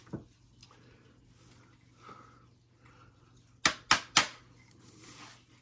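Three sharp plastic clicks in quick succession a little before four seconds in, from hands working a smart bicycle helmet worn on the head, with one fainter click at the start.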